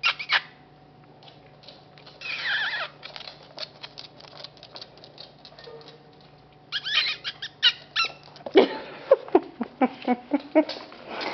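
Vizsla puppy chewing a twisted rawhide stick: irregular crunching, clicking bites that come in bursts, with a squeaky scraping stretch early on and a faster, louder run of gnawing and knocks in the second half.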